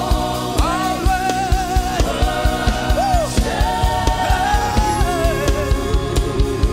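Live gospel worship song: a lead singer and choir holding long, wavering notes over a band with a steady drum beat.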